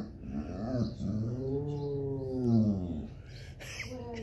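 Basset hound howling: a couple of short wavering calls, then one long howl that rises and falls in pitch and ends about three seconds in. A mournful howl that the owner takes for sadness at missing his bulldog companion and the grandchildren.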